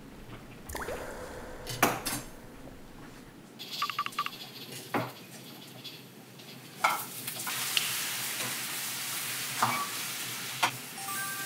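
Kitchen sounds: pans and utensils knock and clink a few times. Then, from about seven seconds in, a steady frying sizzle starts as sliced fish cakes and onion are stir-fried in a frying pan, with a wooden spatula scraping through them.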